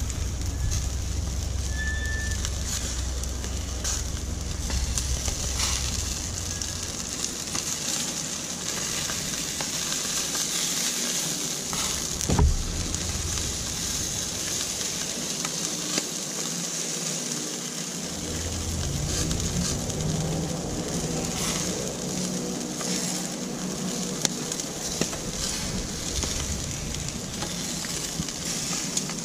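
Marinated quail sizzling on a barbecue grill: a steady sizzle with small scattered pops. Wind rumbles on the microphone for the first several seconds, and there is a single sharp knock about twelve seconds in.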